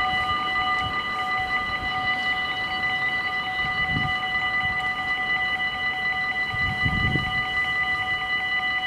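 Dutch automatic level-crossing (AHOB) warning bells ringing fast and without a break as the barriers come down, signalling an approaching train. A brief low thump comes about four seconds in, and a louder low rumble comes around seven seconds.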